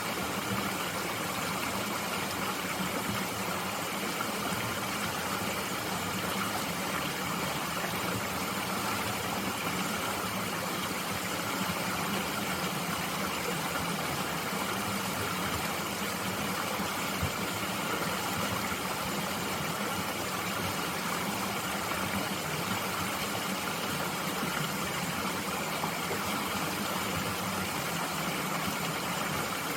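Steady, even rush of a mountain stream flowing over rocks.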